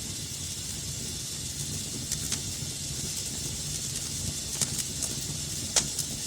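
Wood fire burning in a fireplace: a steady low rumble and hiss with a few sharp crackles and pops, the loudest pop about six seconds in.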